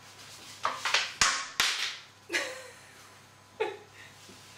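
A ceramic tart dish being handled while its inside is rubbed with butter: rustling, two sharp knocks about a second in, then two short swishing sounds.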